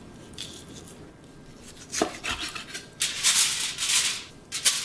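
A sheet of aluminium foil crinkling and rustling as it is handled, loudest about three to four seconds in with two short crackles near the end, after a sharp tap about two seconds in.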